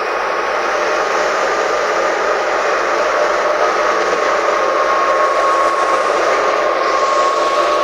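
Wheat threshing machine running steadily: a loud, even mechanical noise with a steady high hum through it.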